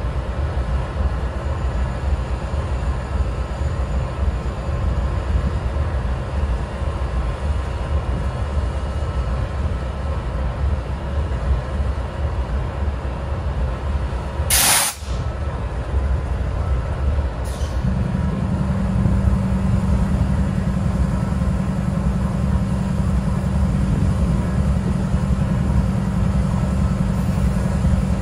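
GE Dash 9-44CW locomotive's 16-cylinder diesel idling with a steady low rumble. About halfway through there is a short, loud hiss of air. A few seconds later a steady hum joins the idle and the sound grows a little louder.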